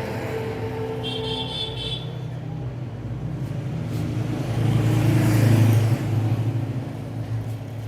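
Road traffic: a motor vehicle engine running steadily, growing louder to a peak about five seconds in as it passes close, then dropping off suddenly. A short high tone sounds about a second in.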